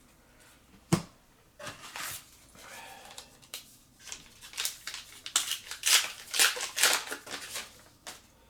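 Foil booster pack wrapper being opened: a sharp click about a second in, then crinkling and tearing that grows busier in the second half.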